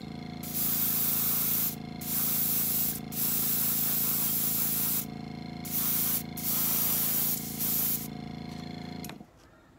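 Airbrush spraying paint in about six hissing bursts, starting and stopping with the trigger, over the steady hum of a small air compressor. The compressor stops about nine seconds in.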